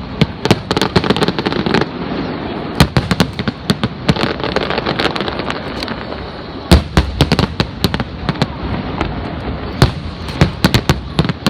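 Fireworks display: rapid volleys of bangs over continuous crackling, with the loudest bang just past halfway.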